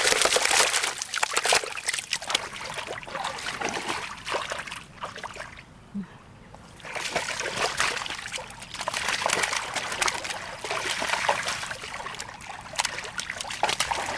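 Water splashing and trickling in irregular bursts, with a brief lull about six seconds in.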